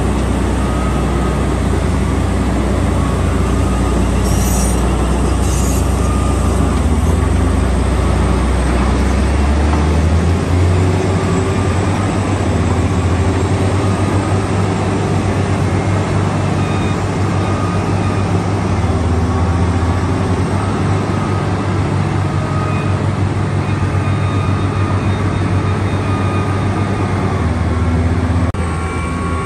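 A vehicle's engine running with a loud, steady low drone; its pitch shifts about ten seconds in.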